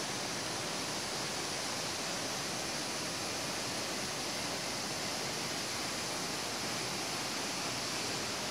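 Steady rushing of a tall waterfall, an even hiss that does not change.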